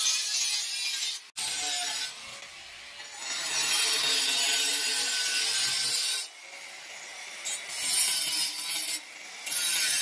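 Electric angle grinder's cutting disc slicing through steel plate held in a bench vise. The cut sound swells and eases in stretches as the disc bites and lets up, with a sudden short break just after a second in and a loud stretch again near the end.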